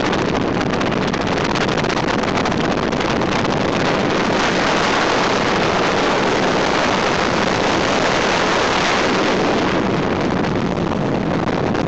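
Ski boat running underway: a steady rush of wind on the microphone and water against the hull, with the boat's engine under it, easing slightly near the end.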